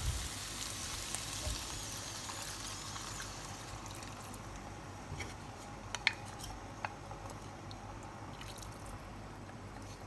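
Stir-fry vegetables sizzling in a hot pan with garlic ginger soy sauce just added. The sizzle slowly dies down, with a few light ticks around the middle.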